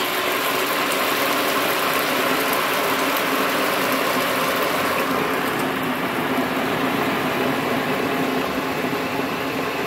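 Chicken wings frying in an electric deep fryer: the hot oil sizzles and bubbles steadily under the closed lid, with a faint steady hum beneath.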